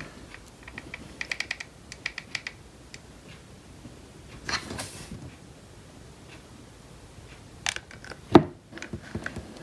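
Hot glue gun's trigger clicking in a quick run of small clicks as glue is pushed out, then a brief rustle about halfway and a single sharp knock near the end, the loudest sound.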